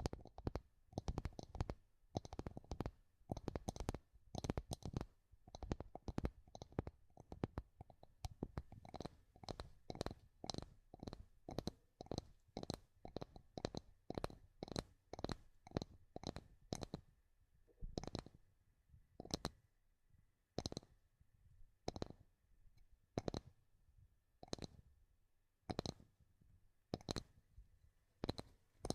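Tapping on wood: close, uneven taps coming several a second. The taps grow sparser after the middle.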